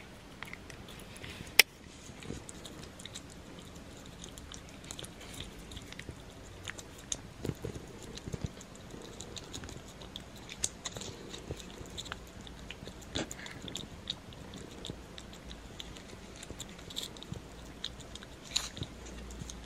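A cat licking paste from a CIAO squeeze-tube treat: a string of small, quick, wet licking and smacking clicks, with one sharp louder click about a second and a half in.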